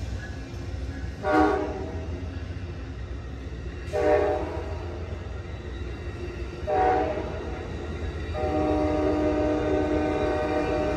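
Amtrak P42 diesel locomotive's horn sounding three short blasts a few seconds apart, then a long held blast starting near the end, over the steady low rumble of the passing train's locomotives and Superliner cars.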